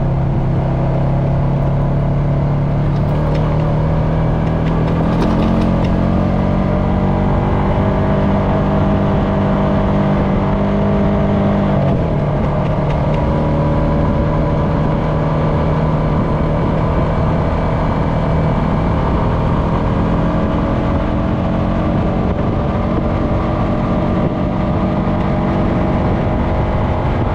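Honda FourTrax Foreman ATV engine running under way on a dirt trail. The engine pitch rises about five seconds in, drops sharply near twelve seconds, then holds steady.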